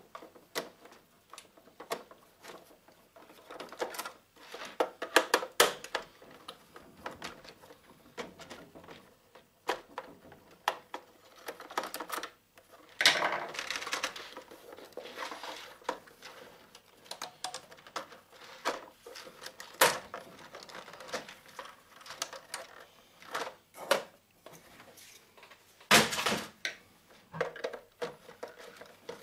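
Screwdriver turning screws in the plastic base of an old office telephone, with irregular clicks, taps and rattles of the plastic housing being handled and shifted on a wooden table. Louder knocks and scrapes come about halfway through and again near the end.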